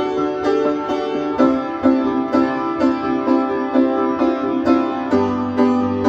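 Upright piano played in repeated chords, about two a second, with the chord changing about a second and a half in and again near the end.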